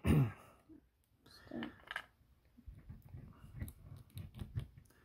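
Light plastic clicks and handling rustles, thickening in the second half, as an action figure's arm joints are bent and a toy shotgun is worked into both of its hands.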